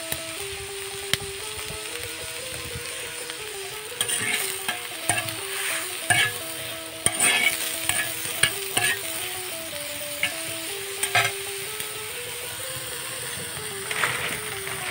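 Mustard flowers and garlic cloves sizzling as they fry on a flat iron pan. A metal spatula scrapes and clacks against the pan in a flurry from about four seconds in, once more around eleven seconds and again near the end.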